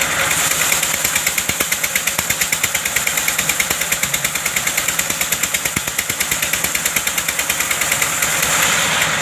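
The engine of a wood-cutting machine running steadily with a rapid, even beat.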